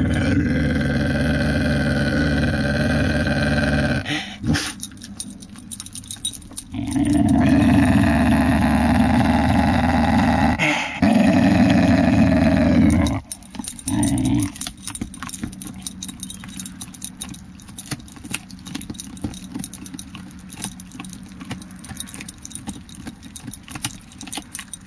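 Whippet growling, low and drawn out, with her teeth bared: three long growls of several seconds each and a short one. After the last one, about halfway through, it goes quieter, with only light clicking.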